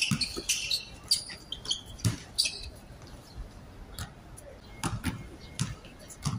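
A basketball bouncing on a hard outdoor court with irregular thuds, mixed with short high squeaks of sneakers on the court surface in the first few seconds.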